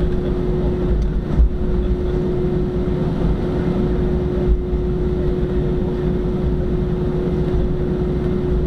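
Cabin noise inside an Airbus A319 taxiing after landing: a steady low engine and airflow rumble with a constant hum, and one light knock about one and a half seconds in.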